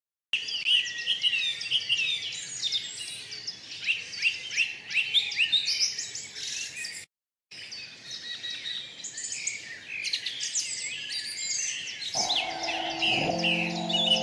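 A chorus of small birds chirping continuously, with short quick calls overlapping one another, cut by a sudden half-second silence about halfway through. Near the end a music track with sustained notes comes in under the birdsong.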